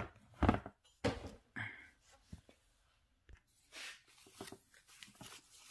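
Clear plastic bag crinkling and rustling as it is pulled off a rotary tool, after a few sharp handling knocks in the first two seconds.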